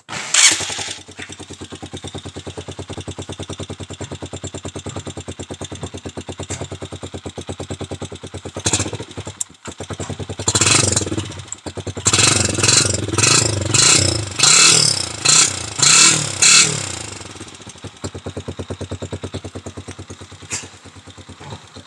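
Honda TMX 125 single-cylinder four-stroke motorcycle exhaust, fitted with a changed tip meant to give a 'chicken pipe' sound. The engine comes to life about half a second in and idles with a rapid steady putter. Around the middle it is blipped about eight times in quick throttle revs, then it drops back to idle.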